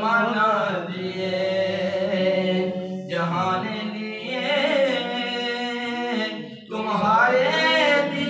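A man singing an Urdu naat unaccompanied into a microphone, with long, ornamented held notes over a steady low hum. There are two short pauses in the line.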